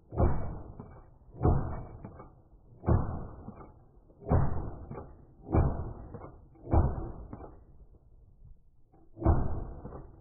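JTS semi-automatic shotgun firing seven shots in quick succession, about one every second and a half, with a longer pause before the seventh. Each report trails off in a short echo.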